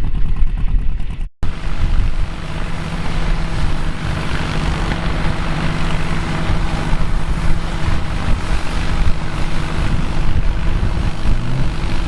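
Vintage farm machinery running at a vintage harvest. First an engine firing rapidly, then after a cut about a second in, a steady drone with a wash of mechanical clatter, like a harvester or tractor working.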